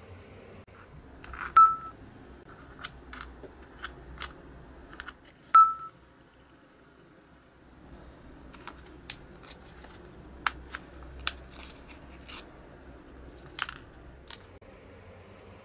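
Small clicks and taps from hand-drilling holes in pieces of perfboard with a pin vise. Two sharp ticks with a brief ringing tone stand out, about a second and a half in and again about five and a half seconds in. In the second half, plastic zip bags of small parts crinkle and click as they are handled.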